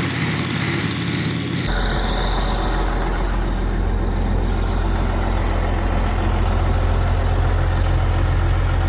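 Heavy engine idling steadily with a deep low hum. About two seconds in, the sound shifts abruptly from a busier, higher-pitched engine noise to this steadier, deeper idle.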